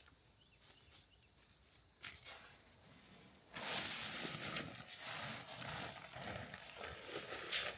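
Insects buzzing steadily with a constant high tone. About three and a half seconds in, a loud, uneven rustling and crunching noise starts and keeps going.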